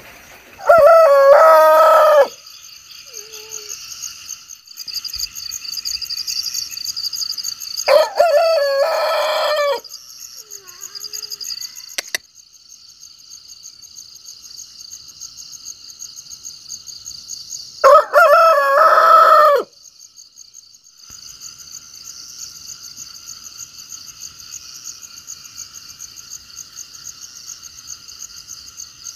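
Rooster crowing three times, each crow about two seconds long, over a steady high-pitched chirring in the background.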